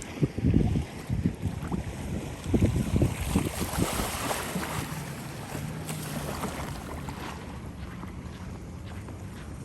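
Wind buffeting the microphone in gusts, strongest about half a second in and again around three seconds in, over a steady low hum.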